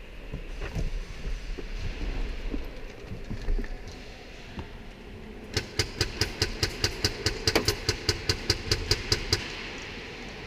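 Airsoft gun firing a rapid, evenly spaced string of about twenty sharp shots, roughly five a second, for about four seconds starting a little past the middle. Before it there is low rumbling with scattered knocks.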